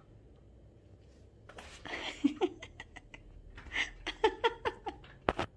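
Small dog rummaging and sniffing through clothes on an ironing board: rustling and quick scratchy clicks, with a few short squeaky sounds, starting about a second and a half in. A single sharp knock comes near the end.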